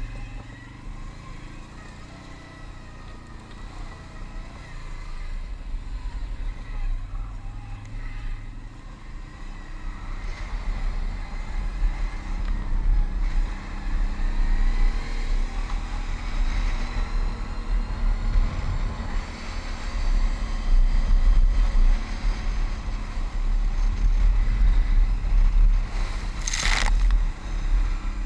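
Can-Am ATV engine running under way with wind and tyre noise, growing louder and rising in pitch as it speeds up from about ten seconds in. Near the end a brief rushing splash as the ATV hits a water hole and throws water up over the rider.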